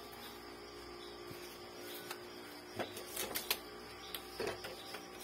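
Hands working the plastic parts of a disassembled Epson L3110 inkjet printer around its print-head carriage. A scatter of short clicks and rattles starts a little under three seconds in, over a faint steady hum.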